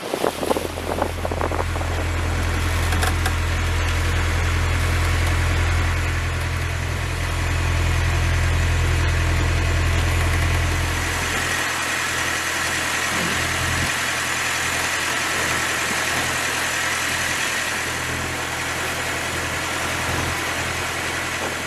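A boat's engine running steadily, a low even hum that drops away about twelve seconds in, over a constant rush of wind and water.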